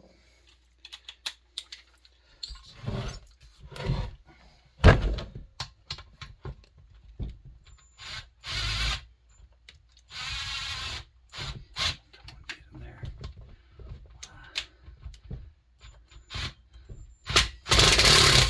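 Impact tool with a socket hammering at the muffler bolts of a Pioneer NU-17 chainsaw in three bursts of about a second each, with the clinks and knocks of tools and parts between them.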